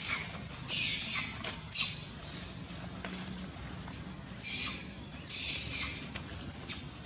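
Baby macaque crying in distress: a run of high-pitched squealing cries, each rising and then falling in pitch, in two bouts with a quiet gap of about two seconds between them.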